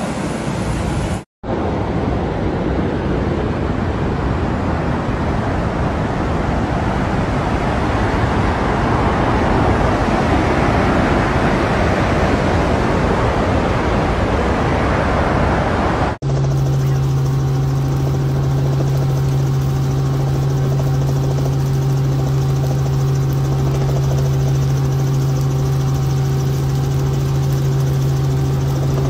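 Heavy water rushing over the spillway of a hurricane-swollen dam, a dense, steady rush that swells toward the middle. About halfway through it gives way to the steady low engine drone of an aircraft flying over flooded ground, one unchanging hum with a few fixed higher tones.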